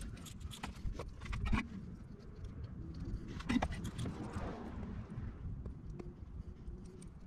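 Light, scattered clicks and taps from wires and a soldering iron being handled and moved into place, in two short clusters, over a low steady rumble.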